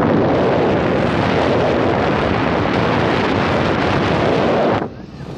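Steady rush of wind on the microphone from a moving motorbike, with road noise underneath. It cuts off suddenly near the end.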